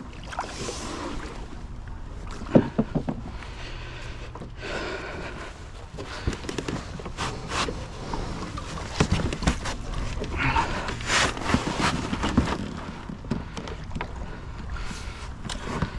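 Irregular knocks, clicks and scrapes on a plastic sit-on-top fishing kayak as a person gets in and settles aboard at the water's edge, the loudest knock about two and a half seconds in.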